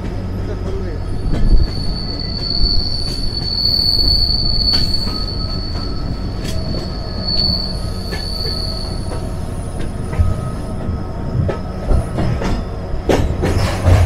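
Passenger train running, heard from aboard the coach: a steady rumble of wheels on rail with scattered clicks, and a high, steady wheel squeal from about two to nine seconds in. Louder knocks come near the end.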